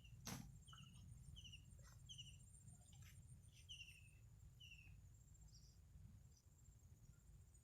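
Faint forest ambience: a bird repeating short, falling chirps over a steady high insect drone, with a low rumble underneath. A single sharp tap sounds just after the start.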